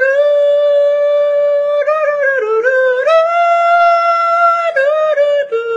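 A slow, mournful melody of long held notes in a single line, stepping up and down in pitch, with a few quicker notes about two seconds in and again near the end.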